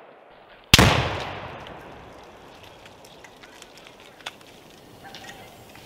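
Tannerite charge detonating and blowing apart a computer target: one loud bang about three quarters of a second in, its echo dying away over a second or two. Faint scattered ticks follow.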